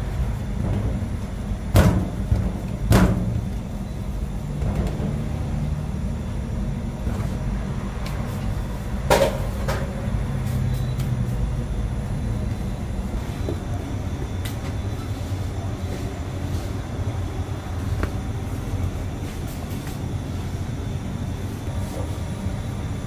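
Bakery work noise: a steady low rumble of machinery or oven burners, with a few sharp knocks, the loudest about two, three and nine seconds in, and lighter clicks between them.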